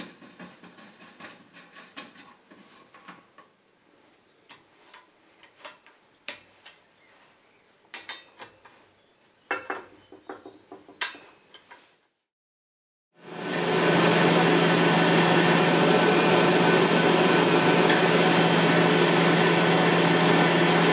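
Scattered light metallic clicks and knocks of hand work on steel parts: a tap turned with a T-handle tap wrench in a vise, then parts fitted to a bead roller. About two-thirds through, after a moment of silence, a metal lathe starts up loud and steady with a low hum, turning a metal shaft with a carbide insert tool.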